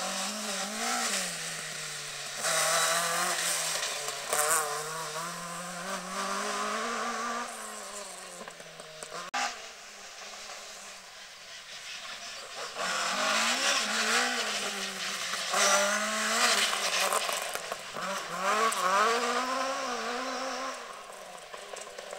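Ford Escort Mk2 rally cars driven hard past on a stage, their engines revving up and dropping through gear changes. One car passes, and after a cut about nine seconds in, a second car follows.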